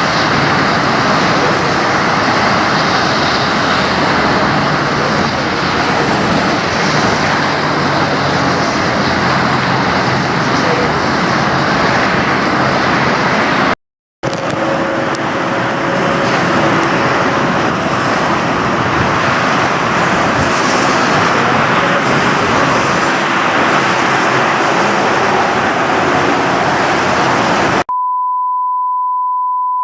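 Steady, loud rush of road traffic noise, broken by a brief silent cut about halfway through. Near the end it gives way to a single steady high-pitched beep tone.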